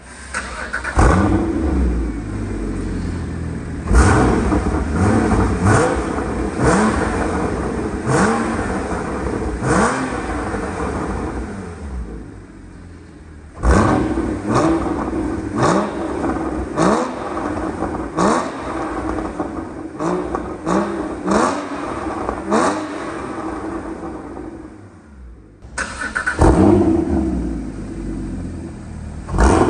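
Porsche Cayman GT4 (981) 3.8-litre flat-six free-revved in a string of sharp throttle blips, each rising in pitch and dropping back to idle. The first part is heard through the stock exhaust with its valves closed. From about halfway it goes through the stock exhaust with the valves open, and near the end through an EVOX Valvetronic stainless exhaust with its valves closed.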